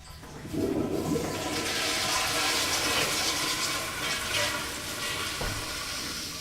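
Toilet flushing: a rush of water that starts about half a second in, runs for several seconds and tapers off near the end.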